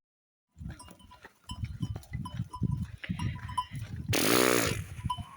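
A goat bleats once, loud and wavering, about four seconds in, over scattered low thuds and rustling. The sound cuts out completely for the first half second.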